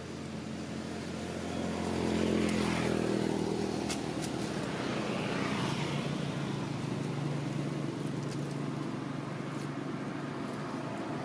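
A motor vehicle driving past, its engine pitch dropping as it goes by about two to three seconds in, then an engine running steadily.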